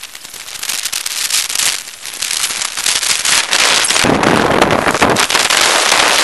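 Storm rain and wind striking the camera's microphone: a dense crackling noise that grows louder, with a deeper rumble joining about four seconds in. It stops abruptly at the end.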